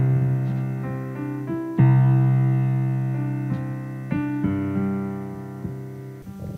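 Background piano music: slow sustained chords, with a new chord struck about two seconds in and another about four seconds in, each fading away.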